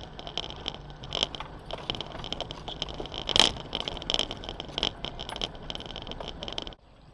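Off-road vehicle driving over a rough track: a dense run of rattles, clinks and knocks over the steady running noise, with one loud knock about three and a half seconds in. It cuts off abruptly near the end.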